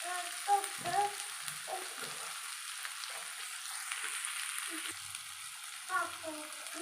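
Sliced ivy gourd (dondakaya) sizzling steadily in hot oil in an uncovered pan over a medium flame, its moisture cooking off.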